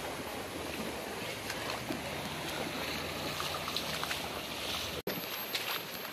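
Shallow river water rushing over a rocky bed, with splashing as people wade through it pushing a wooden longboat upstream. The sound breaks off for an instant about five seconds in.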